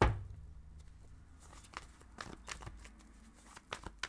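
A thump on the tabletop, then light scattered clicks and rustling of tarot cards being handled.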